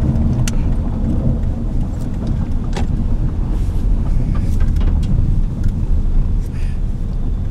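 Steady low road and engine rumble heard inside a moving car's cabin, with a few faint clicks scattered through it.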